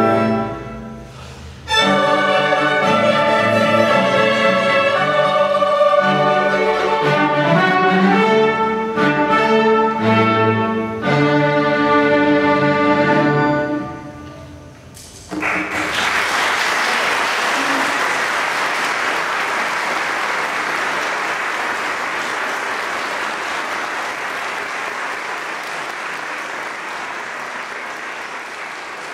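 A chamber string orchestra of violins and cellos plays a classical piece, with a short pause about a second in, and ends its final chord about halfway through. Then an audience applauds, the applause slowly fading.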